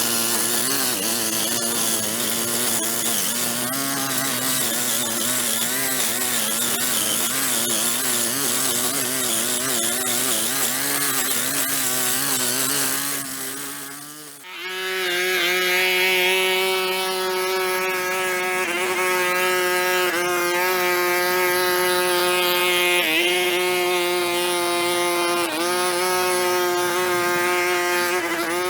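Small gasoline engine of a handheld lawn power tool running under load, its pitch wavering. About halfway through it drops away for a moment, then returns at a higher, steady pitch.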